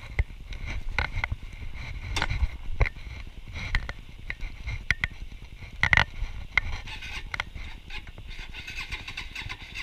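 Irregular clicks, knocks and rustling handling noise over a low rumble, with the loudest knock about six seconds in; the motorcycle engine is not yet running.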